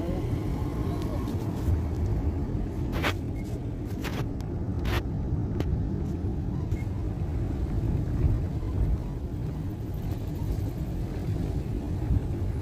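Steady low rumble of road traffic, with a few short sharp sounds between about three and six seconds in.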